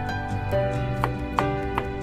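Gentle background music with held melodic notes, and three short sharp taps of a chef's knife dicing an onion on a wooden cutting board, evenly spaced in the second half.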